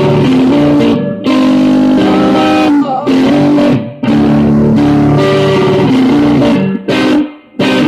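Electric guitar strummed in ringing chords, played live, with several short stops between the chords.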